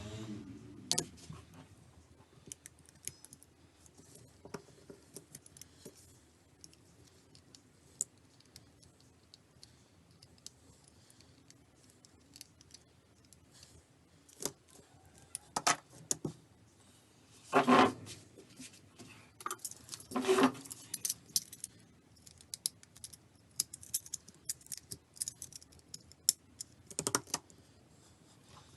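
Small hand tools clicking, scraping and clattering against a 3G device's casing as it is prised apart: scattered sharp clicks throughout, with louder clatters about halfway through and again near the end.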